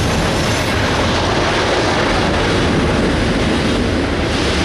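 Covered hopper cars of a freight grain train rolling across a steel girder bridge, a steady loud rumble of wheels on the rails.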